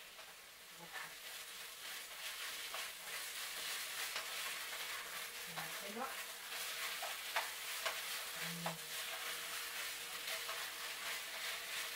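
Pork and garlic sizzling in a nonstick wok while a wooden spatula stirs and taps against the pan. The sizzling grows louder about a second in.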